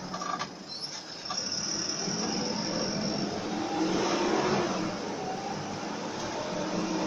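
Bus engine and road noise heard from inside the cabin as the bus drives through town, growing louder about a second in.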